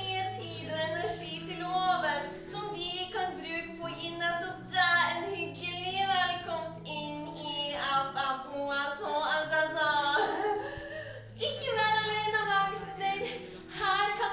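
Background music: a song with a melodic singing voice over held low chords.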